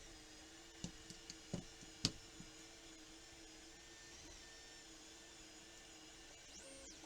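Several light clicks and knocks of small objects being handled, clustered between about one and two and a half seconds in, over a faint steady hum.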